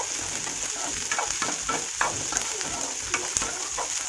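Onions, green chillies and ginger-garlic paste sizzling in hot oil in a metal kadhai as they are stirred, with irregular clicks and scrapes of the utensil against the pan over a steady hiss.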